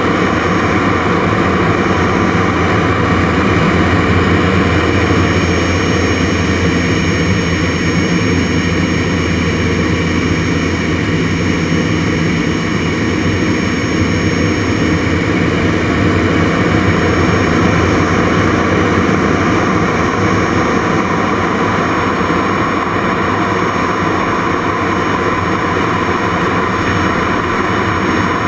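Jet Provost Mk5's Viper turbojet running steadily with rushing airflow, heard from inside the cockpit canopy in flight, with a thin steady high whine on top.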